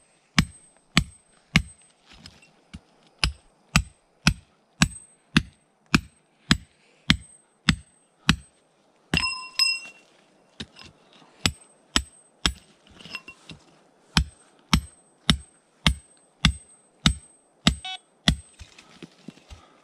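Electronic treasure-hunting metal detector ticking steadily about twice a second as it scans, with a longer beep about nine seconds in and a short chirp near the end.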